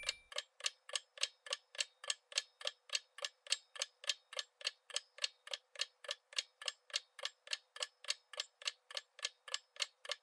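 Countdown-timer sound effect: a clock ticking steadily, about three and a half ticks a second.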